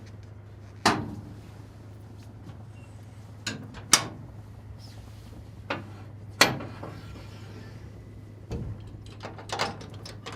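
Metal access doors and panels on a John Deere excavator being swung and shut, giving a series of sharp clanks and latch knocks over a steady low hum.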